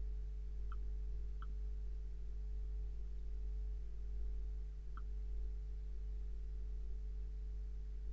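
Steady low electrical hum of the recording setup, with a few faint computer-mouse clicks, two close together about a second in and one about five seconds in.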